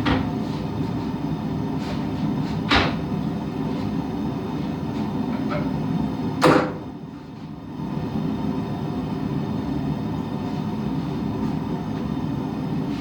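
A forge running steadily, with a few sharp metal knocks of tools and stock; the loudest knock comes about six and a half seconds in, after which the running noise drops briefly and then comes back.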